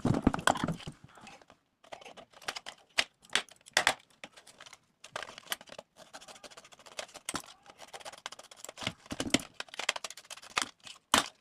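Hands opening a small gift package: irregular rustling and crinkling of the wrapping with scattered light clicks and taps.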